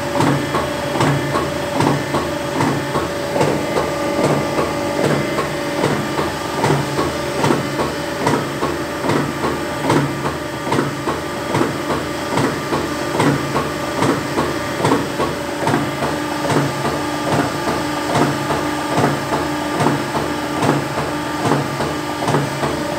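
A 20-ton hydraulic press with a jeweller's chain-stamping die cycling repeatedly, roughly one stroke a second, over the steady whine of its hydraulic pump.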